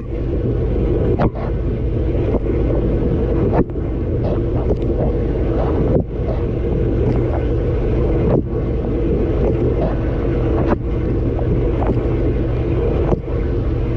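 Dishwasher mid-cycle, heard from inside the tub: water jets from the spray arms pelting the dishes and walls over the steady hum of the circulation pump. The spray noise dips briefly about every two and a half seconds, in rhythm with the rotating spray arm.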